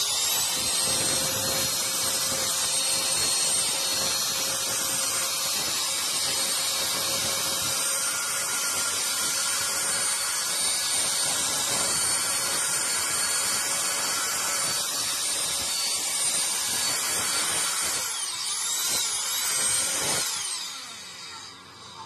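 Homemade 12 V mini vacuum cleaner with a 554 DC motor spinning a hair-dryer fan. It spins up at the start and runs with a steady high whine and airflow rush while sucking up screws, which rattle into it. Near the end its pitch dips and recovers a couple of times, then it winds down.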